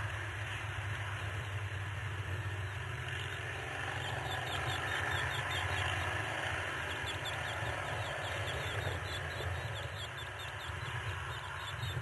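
Steady low electrical hum and hiss from a nest camera's audio feed. Over it come faint runs of quick, high chirps, once about three seconds in and again from about seven to eleven seconds.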